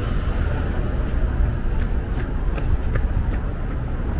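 City street sounds: a steady low traffic rumble with indistinct voices of passersby and a few faint clicks.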